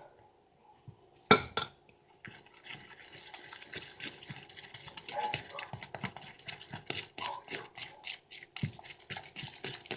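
A spoon stirring a thick mix of hair conditioner and flour in a mixing bowl: a steady wet scraping with many small clicks against the bowl. It is preceded by a single sharp knock about a second in.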